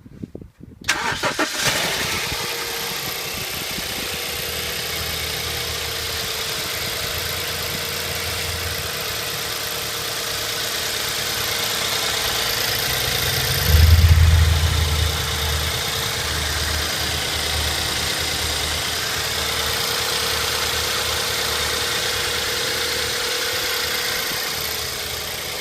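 BMW 318i E91's N43B20 four-cylinder petrol engine cranking and catching about a second in, then idling with a steady whine and a high hiss. About 14 seconds in a loud low rumble swells for about a second and settles back. The owner finds the engine's sound strange.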